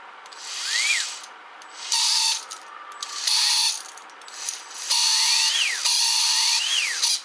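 Bare brushed DC motor of a cordless mini angle grinder, run out of its housing in about five short bursts as its repaired switch is pressed. Each burst's whine rises as the motor spins up and falls as it coasts down, showing that the switch now works.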